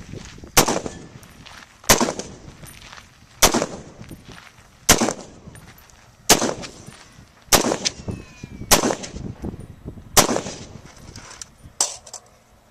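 Rifle fire: nine single, evenly paced shots, about one every one and a half seconds, each dying away briefly after the crack.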